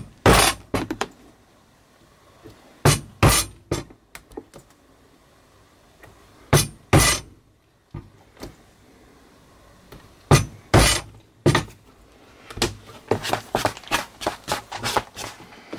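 Mallet striking a hollow round leather punch, driving holes through a thick leather tab: sharp knocks, mostly in quick pairs or threes a few seconds apart. Near the end comes a fast run of lighter clicks and knocks.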